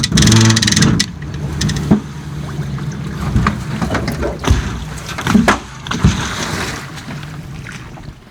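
An engine running, loud and pulsing for about the first second, then settling to a steadier, lower running sound that fades toward the end, with several sharp knocks over it.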